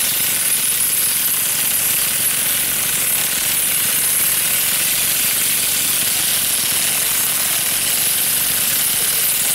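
Powered pole-mounted olive harvester working in the canopy, its beating head making a steady, rapid mechanical rattle.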